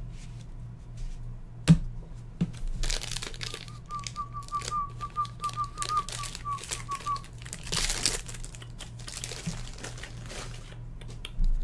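Foil wrapper of a baseball card pack crinkling and tearing as it is ripped open by hand, with a sharp click just under two seconds in. A faint, fast-warbling high tone runs for a few seconds in the middle.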